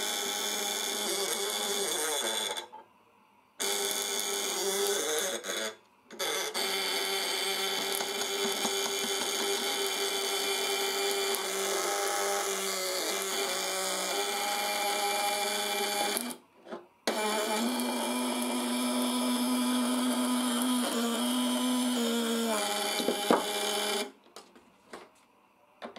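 Homemade vibrating contact breaker (platina) with widia steel contacts buzzing steadily as it drives a fish-shocker coil. Its pitch drops lower for a few seconds past the middle. It cuts out briefly three times and stops near the end.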